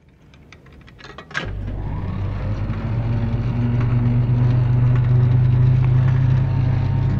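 Film projector switching on: a few clicks, then its motor starts with a low, steady hum about a second and a half in that grows slowly louder.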